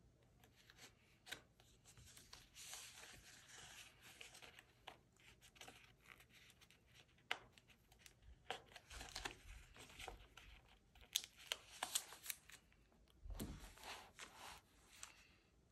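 Sticky index tabs being peeled from their backing sheet and pressed onto a paper diary page: quiet peeling and rustling in a few short spells, with small clicks and taps.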